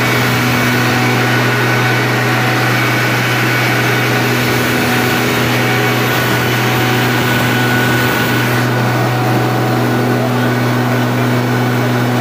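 Greaves Cotton 500 kVA twelve-cylinder diesel generator set running steadily at constant speed: a loud, even drone with a few steady whining tones above it.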